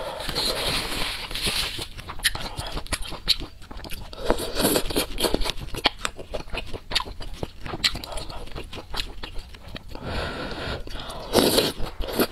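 Close-miked eating sounds: noodles slurped from a bowl of spicy soup and chewed, with many small wet mouth clicks. Longer slurps come near the start, about four seconds in, and again about ten seconds in.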